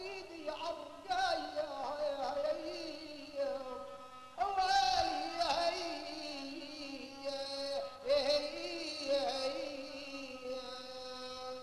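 Arabic folk song: a voice singing long, wavering, ornamented phrases, with notes held for several seconds in the second half.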